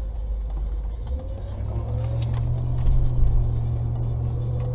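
Road and engine rumble heard from inside a moving car, low and steady, growing a little heavier about two seconds in.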